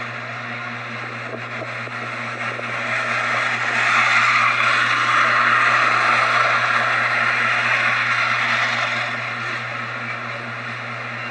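A steady low hum, with a rushing noise that builds about three seconds in and fades away near nine seconds, as of a vehicle going by.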